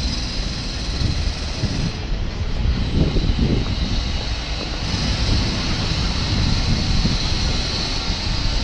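Steady city-street background noise with a deep rumble and no clear single event.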